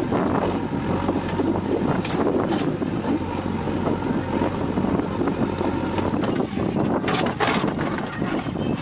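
JCB 3DX backhoe loader's diesel engine running steadily under load, with a few short knocks and rattles, the loudest near the end.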